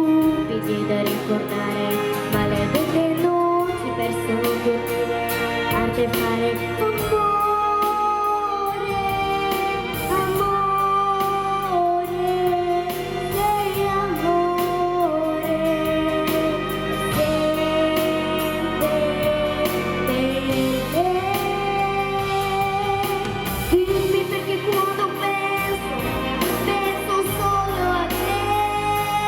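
A female voice singing a sustained melody over instrumental backing music.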